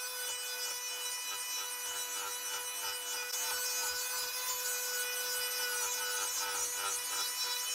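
Dremel 4200 rotary tool running at speed with a steady high whine, its sanding drum rasping against the edge of a wooden frame to bevel it.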